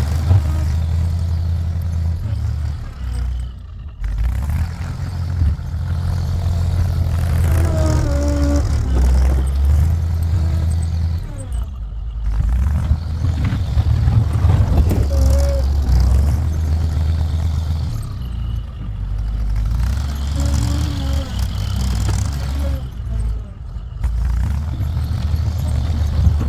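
BM Volvo H10 wheel loader's diesel engine running hard as the machine pushes snow with its front blade, easing off briefly four times and then pulling again.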